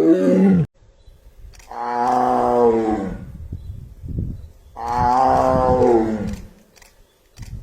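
Tiger roaring: a roar that cuts off just under a second in, then two long roars, each about a second and a half, falling in pitch at the end.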